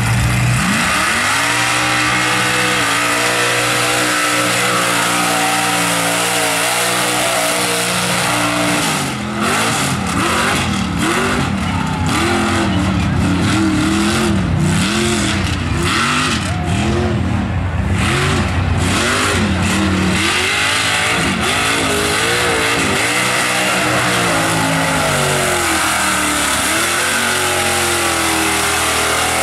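Engine of a Chevrolet Silverado mud truck on tractor tires, running steadily, then revved up and down over and over from about a third of the way in. Near the end it runs at high revs as the truck charges through the mud pit.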